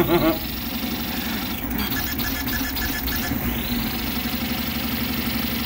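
Vz235 CoreXY 3D printer printing at extreme speed with 50k acceleration: a steady mechanical buzz as the toolhead darts back and forth. A whine sweeps upward twice, once near the start and again past the middle.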